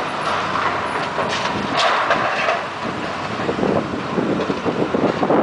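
Hydraulic demolition excavators working into a heap of building wreckage: engine noise under continuous, irregular crunching and clattering of breaking and falling debris.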